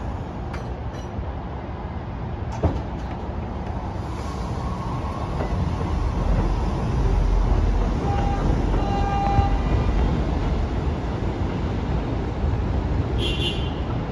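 New York City Subway 1 train of R62A cars running on elevated track, a steady rumble that grows louder toward the middle. About two-thirds of the way through come two short high tones.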